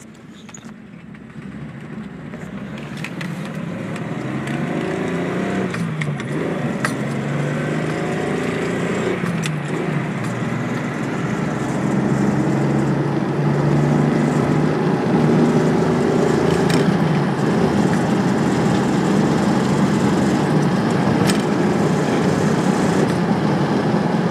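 Datsun 280Z's inline-six engine running under way, growing louder over the first dozen seconds. Its pitch rises and drops back twice, about five and nine seconds in, then holds steady. A few sharp clicks sound over it.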